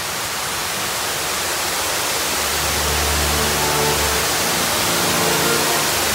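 A loud, steady rushing hiss from a stage show's soundtrack that starts suddenly. Low held music notes come in under it about two and a half seconds in.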